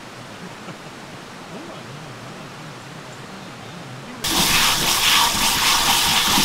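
Faint background ambience, then about four seconds in a sudden loud rush of tap water spraying onto food in a metal mesh strainer as a hand rinses it in a sink.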